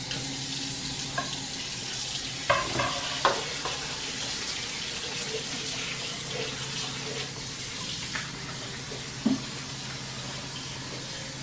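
Kitchen faucet running in a steady stream as vegetables are rinsed under it, with a few light knocks and clatters from handling about two to three seconds in and once more near the end.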